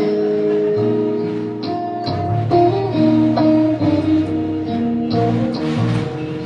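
Instrumental passage of a pop love song with no singing: guitar-led music with held notes changing chord every second or so over a bass line, with a few sharp percussive hits.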